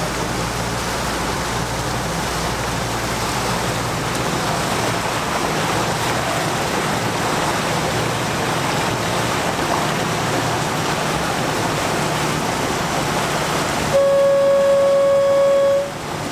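Small passenger launch under way: steady rush of water and wind with a low engine hum. Near the end the boat's horn sounds one long steady blast of about two seconds, as the launch approaches its dock.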